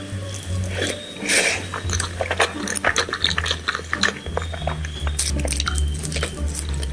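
Close-miked chewing and mouth sounds of a person eating a rice-and-dal meal: many short, wet clicks at an uneven pace.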